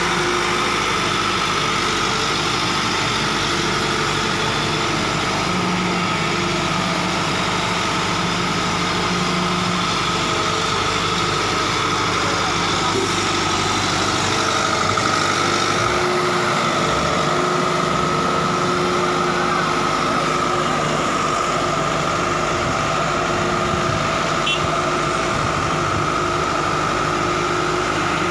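Case 1107EX single-drum vibratory roller's diesel engine running steadily at a constant pitch.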